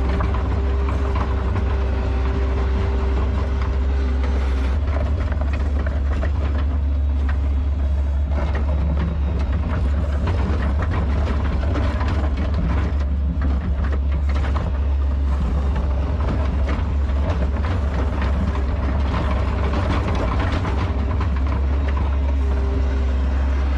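New Holland L150 skid steer's diesel engine running under load while pushing snow, a steady low rumble with a whine that holds for the first few seconds, then shifts and wavers, and scattered scraping and clicks.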